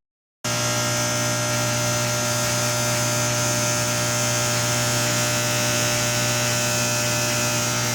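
Outgoing power cables of a low-voltage motor control centre humming loudly and steadily, a strong low hum with higher overtones and a hiss over it, starting abruptly about half a second in. The uploader puts the hum down to cables vibrating against one another, held in the wrong cleats.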